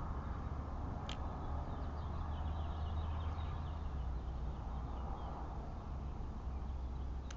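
Outdoor backyard ambience picked up by a trail camera's microphone: a steady low rumble under faint bird chirps, with one sharp click about a second in.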